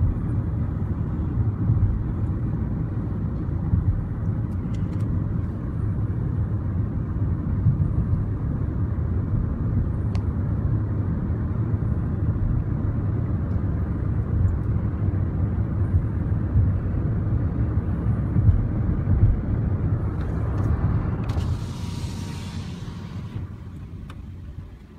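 Steady low road and engine rumble inside a moving car. Near the end a brief hiss lasts about two seconds while the rumble fades off, as the car slows.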